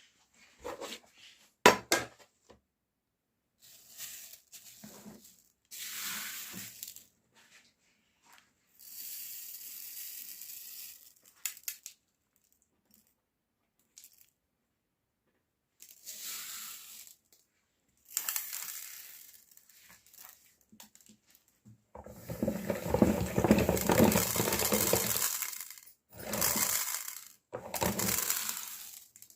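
Small candies clattering into a metal meat grinder and being crushed, in several separate bursts of clinking and crunching. The longest and loudest stretch of grinding lasts about three and a half seconds, late on.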